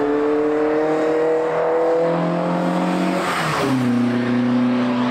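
Fiat Ritmo Abarth 130TC with twin-choke Weber carburettors accelerating past, its engine note climbing steadily as it approaches. About three and a half seconds in, it rushes by and the pitch drops sharply, then holds steady at the lower note.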